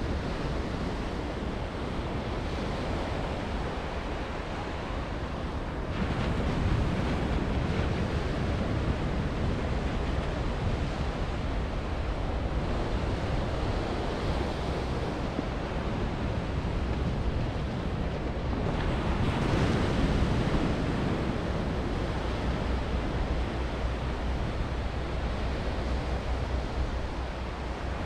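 Small waves on a calm sea breaking and washing up a sandy beach, a steady surf hiss that swells louder twice as larger sets come in, with a low wind rumble on the microphone underneath.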